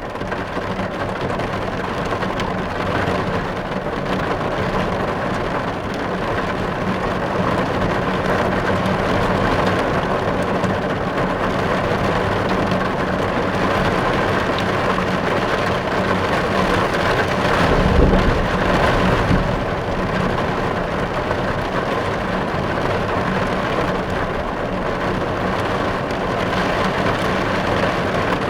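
Heavy rain drumming on car windows, heard from inside the car as a steady, dense patter. A low rumble swells briefly about two-thirds of the way through.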